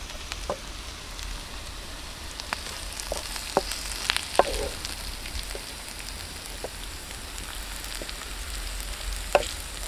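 Sliced onions, chillies and ginger frying in coconut oil in an iron pan: a steady sizzle with scattered sharp pops and clicks.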